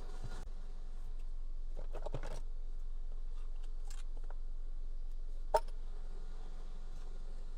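Quiet hand-work noises during steering-wheel re-trimming: a short rustle about two seconds in and one sharp click about five and a half seconds in, over a steady low hum.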